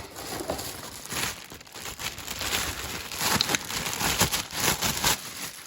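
Plastic packaging crinkling and rustling as a power tool and its charger are handled and unwrapped, with small irregular knocks from the handling.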